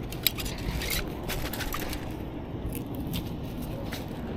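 A sharp click, then a scatter of light clicks and scrapes, over a steady low rumble.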